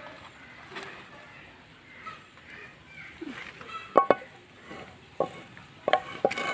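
Several sharp knocks and clinks of a frying pan and wooden spatula as fried fish is lifted out and the pan is set aside. The loudest pair comes about four seconds in, with a few more near the end.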